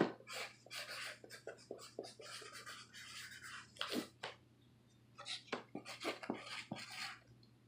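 Cardboard box and packing materials being handled: an irregular run of rustles, scrapes and light knocks.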